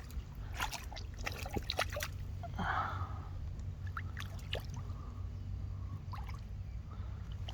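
Small splashes and drips of water as a hooked snook struggles at the surface, with scattered sharp clicks.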